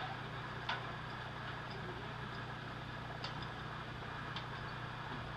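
Framing site ambience: a steady low hum with three faint, sharp knocks spaced through it, from the crew working on the floor joists.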